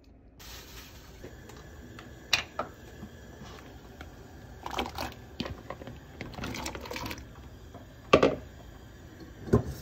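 Kitchen clatter as sliced rice cakes are tipped from a plastic bowl into a pot on the stove: scattered light clicks and knocks, with two sharper knocks near the end.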